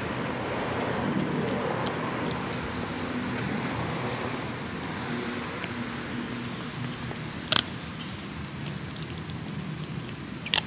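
German Shepherd chewing a raw chicken drumstick, with small crunching ticks and two sharp bone cracks, one past the middle and one at the very end, over steady rushing background noise.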